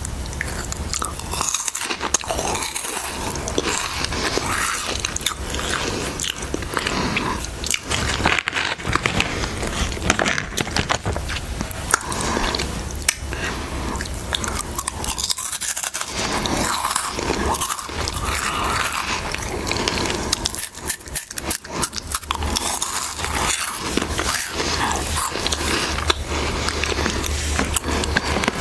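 Close-miked biting and chewing of Harvest Snaps snack crisps: sharp crisp bites followed by dense crackly crunching, with short lulls about 15 and 21 seconds in.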